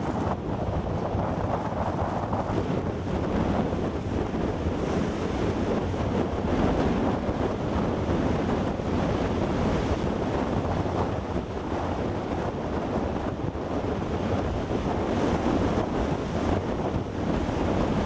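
Heavy storm surf crashing and rushing ashore in a steady roar, with strong onshore wind buffeting the microphone. The surf is driven by a coastal low-pressure system.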